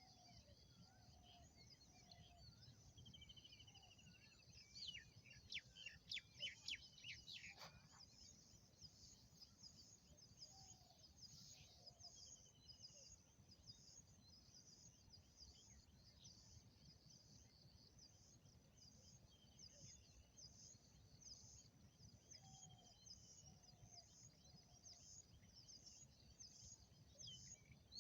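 Near silence with faint birdsong in the background: high chirps repeating about twice a second, with a few short trills and a brief flurry of chirps around five to eight seconds in.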